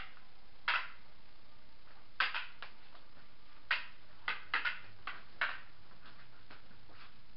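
Rattan eskrima sticks clacking together in sparring, about ten sharp, irregular knocks, some in quick pairs about two to five seconds in, over a steady background hiss.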